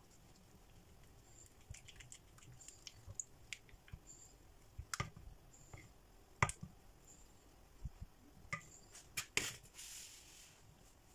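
Silicone spatula stirring thick melted chocolate in a small metal saucepan: faint scraping with scattered light clicks and taps against the pan, more frequent in the second half, and a short rustling hiss near the end.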